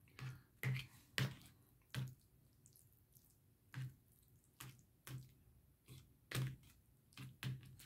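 Wet mouth clicks and lip smacks of a person chewing a mouthful of food close to the microphone: about a dozen short clicks at uneven intervals.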